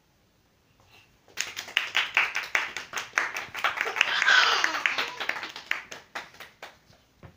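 Hands clapping quickly, several claps a second, starting about a second in and dying away near the end, with a voice calling out over them midway.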